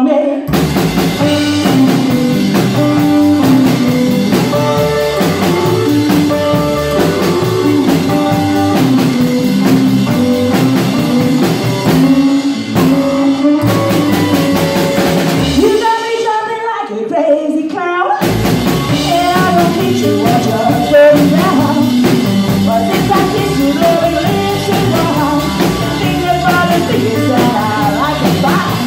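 Live rock and roll band playing: a woman singing lead over an upright double bass, a hollow-body electric guitar and a drum kit. About sixteen seconds in, the band drops to a sparse break for a couple of seconds, then comes back in full.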